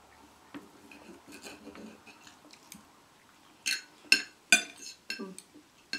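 Fork and knife clinking and scraping against ceramic plates: faint small clicks at first, then a quick run of sharp clinks from a little past halfway.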